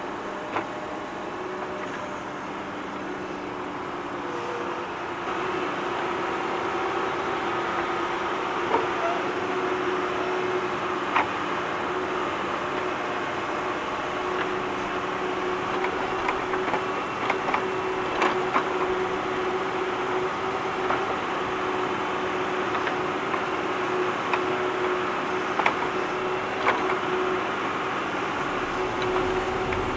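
Tractor digging: its diesel engine runs with a steady note, growing a little louder about five seconds in, while short clanks and knocks from the digging work come every few seconds.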